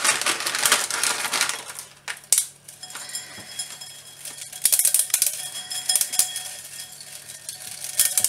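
Dry rice stick noodles pulled from their plastic packet and broken apart by hand into a glass bowl. The plastic crinkles at first, then the brittle noodles snap and click against the glass, with louder clusters of snapping about five seconds in and again near the end.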